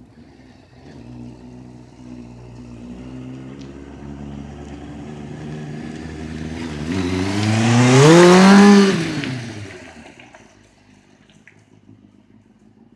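Motorcycle engine revving as it approaches and passes, its pitch climbing steeply to the loudest point about eight to nine seconds in, then dropping in pitch and fading away.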